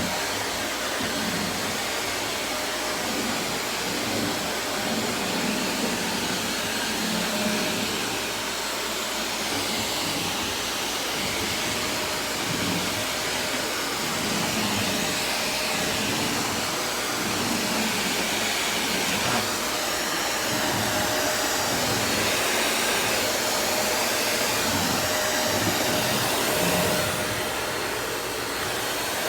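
Vacuum cleaner running steadily, a continuous rushing sound with a faint motor whine whose sound shifts slightly up and down over time.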